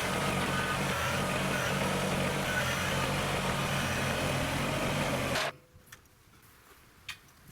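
Kubota BX compact tractor's small diesel engine running steadily, cutting off abruptly about five and a half seconds in; after that only a faint background with a few light clicks.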